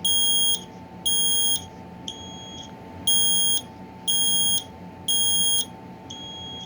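Kidde i9010 ionization smoke alarm's piezo horn sounding its loud, high-pitched alarm during a test, in the temporal-three pattern: three half-second beeps about a second apart, then a pause, then three more. A fainter beep falls in each pause.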